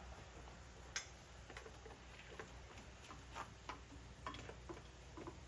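Faint, irregular light clicks and taps, a scattering of them, the first about a second in the loudest.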